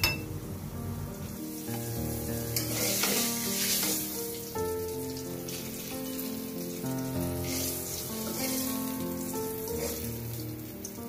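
Hot oil sizzling in a frying pan as fried eggplant slices are lifted out, swelling a few seconds in. Background music of held notes plays throughout.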